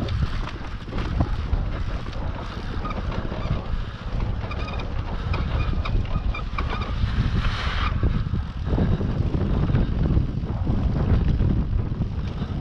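Wind buffeting the microphone as an enduro dirt bike rolls slowly over a bumpy grassy slope, with scattered small knocks and rattles from the bike. A short hiss rises about seven to eight seconds in.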